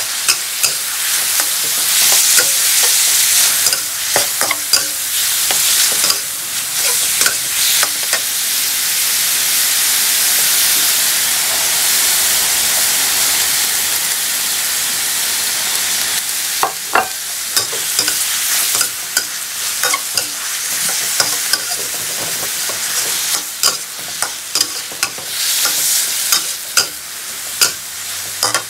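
Chicken breast and sliced chili peppers sizzling in a hot metal wok while a metal spatula stirs and scrapes against the pan. A steady frying hiss runs throughout. Sharp clicks and scrapes of spatula on wok are frequent, fewest in the middle and thickest in the second half.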